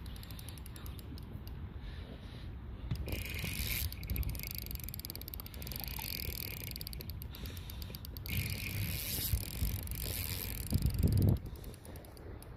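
An ultralight fishing reel being cranked, its gears and anti-reverse giving a fast, even ticking whir as line is wound in on a hooked fish. Wind rumbles on the microphone underneath, with a stronger gust near the end.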